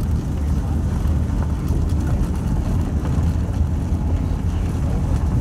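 Vehicle driving slowly along a gravel road: a steady low rumble of engine and tyres.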